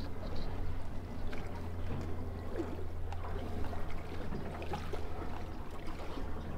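Water lapping and trickling against the hull of a boat drifting with its outboard motor dead, with a steady low hum and scattered small knocks and clicks.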